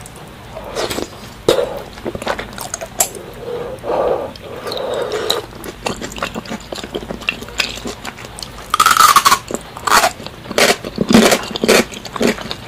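Close-up mukbang eating sounds: a man chewing and biting food eaten by hand, with irregular wet smacks and crunches. A louder burst of noisy mouth sounds comes about nine seconds in.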